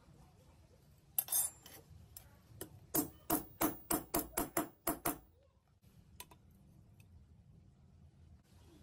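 A hammer striking a flat steel tool handle laid on a steel anvil block, straightening it. There is a short double knock about a second in, then a quick run of about nine ringing blows, roughly four a second, ending about five seconds in.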